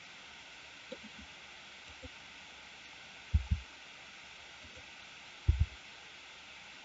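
Faint steady hiss with a few short, soft, low thumps: a light one about a second in, then two close pairs about three and a half and five and a half seconds in.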